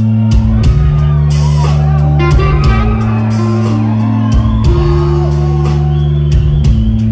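Rock band playing an instrumental passage: a guitar line with bending, gliding notes over long held low bass notes and a steady drum beat.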